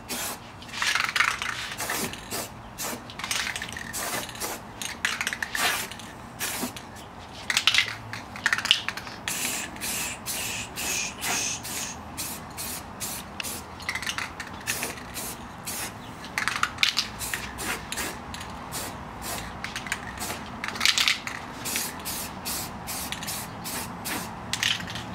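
Aerosol can of clear coat hissing in a long run of short spray bursts as a coat is laid onto a headlight lens.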